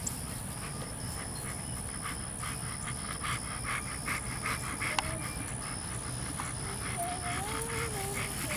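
American Bully dog panting hard and steadily, about three breaths a second.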